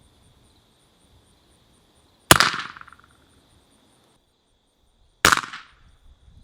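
Two suppressed .44 Special shots from a Marlin 1894 lever-action carbine fitted with a Griffin Armament Resistance 45 suppressor, about three seconds apart. Each is a sharp report with a short fading tail, heard from about 25 yards downrange.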